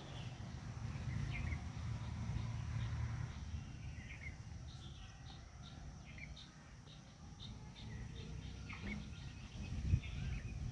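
Birds chirping in scattered short calls, with a quick run of repeated chirps in the middle, over a steady low rumble of outdoor ambient noise. A brief low thump comes near the end.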